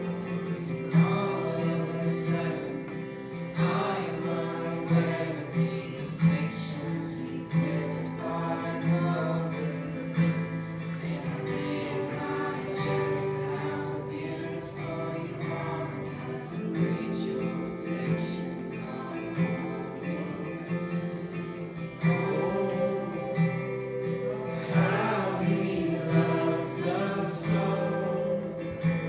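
Live worship music: an acoustic guitar strumming under sustained chords, with voices singing along.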